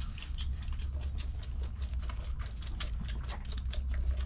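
Bottle-fed baby farm animals suckling on bottle nipples: a fast, uneven run of small wet sucking clicks, over a steady low hum.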